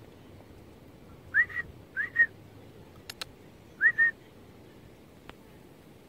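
Three short two-note whistles, each sliding up and then holding briefly, with two quick sharp clicks between the second and third.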